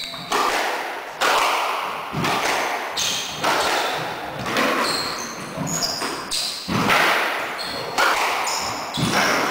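Squash rally: the ball cracking off rackets and walls about once a second, each hit echoing around the court, with short high squeaks of shoes on the wooden floor.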